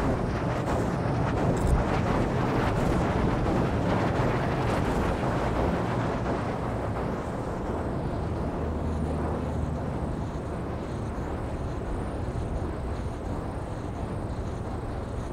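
Extreme wind at a wind-farm site, a steady rushing noise with heavy low rumble, picked up by a shotgun microphone in a blimp wind cover.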